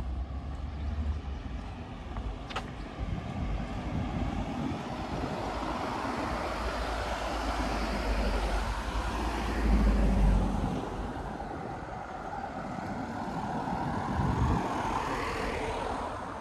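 Cars passing on the road: engine and tyre noise that swells to its loudest pass about ten seconds in and to a second pass shortly before the end.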